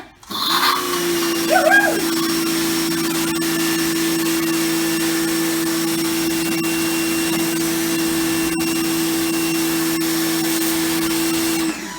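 Titan TTB66PRW electric pressure washer's motor and pump starting up and running at a steady, even pitch, then cutting off just before the end. A brief squeal is heard over it about one and a half seconds in.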